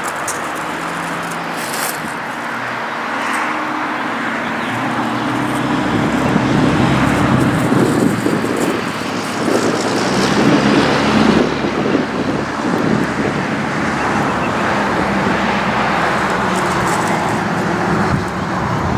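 A motor vehicle running, with steady engine and road noise.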